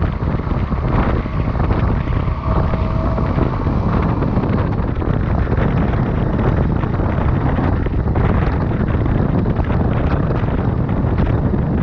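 Steady wind buffeting on a chest-mounted camera's microphone while riding a motorcycle, with motorcycle and road noise mixed in beneath.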